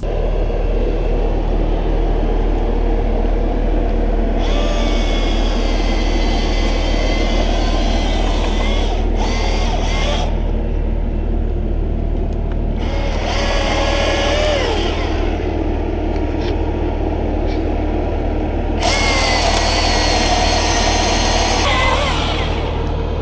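Diesel engine of a Bobcat compact machine running steadily under work. Three stretches of a higher, wavering whine come and go over it, about four seconds in, in the middle, and near the end.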